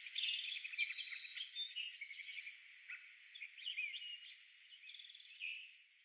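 Faint birdsong: a chorus of small birds chirping and trilling over one another, fading out near the end.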